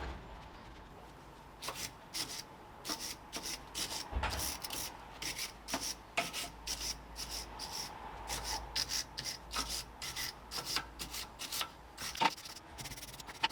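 Hand sanding of iron railings: quick back-and-forth rasping strokes of an abrasive pad or paper on the metal, about two or three a second, starting about two seconds in.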